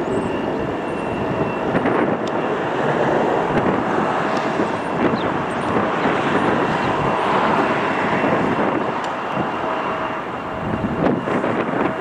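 Jet engines of a Delta Boeing 767 on final approach with its gear down: a steady rushing roar with a faint whine, swelling a little as the airliner nears. Gusty wind on the microphone is mixed in.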